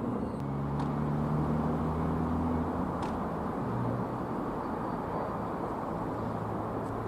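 Freight train running past: a steady rumbling roar with a low engine drone whose pitch shifts about three seconds in.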